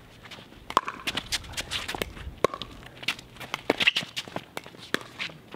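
Pickleball rally: several sharp hits of paddles on the plastic ball, with quick footsteps and shoe scuffs on the hard court between the hits.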